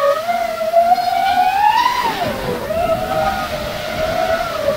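FPV quadcopter's brushless motors whining, the pitch climbing as the throttle is pushed up, dropping sharply about two seconds in as the throttle is cut, then holding fairly steady.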